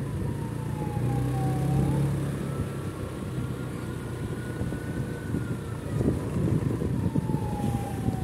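A siren wailing slowly: its tone slides down, sweeps back up about two seconds in, holds high, then slides down again. Under it runs the low rumble of a vehicle engine.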